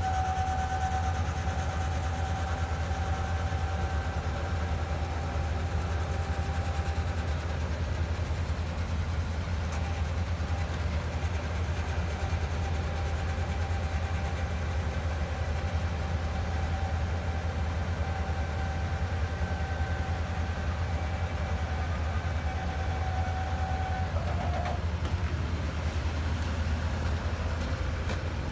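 Cat wheel loader's diesel engine idling steadily, with a steady high whine over the rumble that stops about 24 seconds in.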